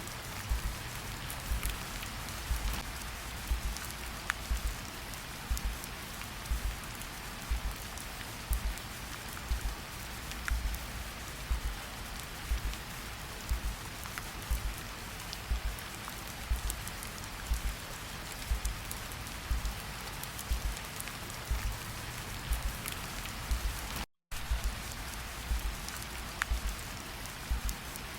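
Steady rain falling, layered with a slow heartbeat: soft, low thumps a little more than once a second. The sound cuts out for an instant near the end.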